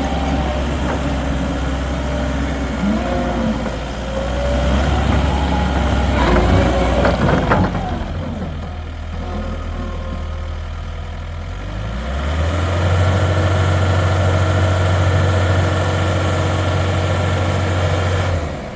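Takeuchi TL10V2 skid steer's Kubota turbo diesel running, with wavering higher tones over the engine hum at first. About twelve seconds in the engine speeds up and holds a higher steady note, then drops back near the end.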